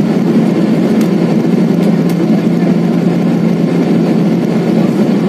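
Steady jet cabin noise in flight inside a Boeing 777-300ER: a loud, even rush of GE90 engine and airflow noise with a low steady hum running beneath it.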